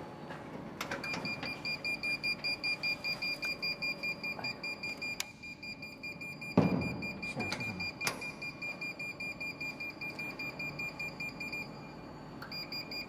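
Industrial chiller's controller alarm beeping, a high tone pulsing about four times a second, which stops briefly near the end and starts again. The alarm signals a three-phase power fault, which the technician puts down to the supply wires being connected in the wrong order. One loud thump about halfway through.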